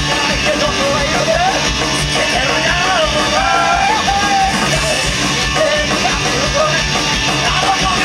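Live rock band playing loud garage-punk, with electric guitars, bass and drums, and a male vocalist singing in a shouted style over it.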